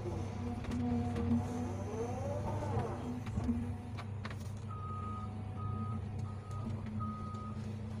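Hydraulic excavator's diesel engine running steadily, with a whine rising and falling as the bucket and arm move in the first few seconds. Past the middle, a reversing alarm beeps four times at a single pitch.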